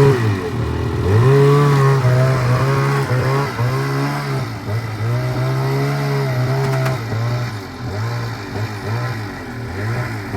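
Snowmobile engine revving in uneven throttle bursts, its pitch rising and dipping, as the sled is driven up the loading ramp onto the truck deck.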